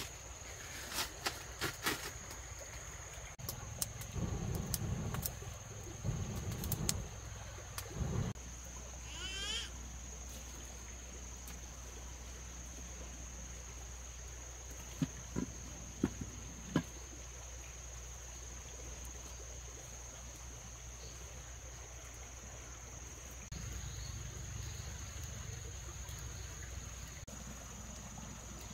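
Steady high-pitched insect drone, with scattered clicks and low knocks in the first eight seconds, a brief warbling call about nine seconds in, and a few sharp clicks about halfway through.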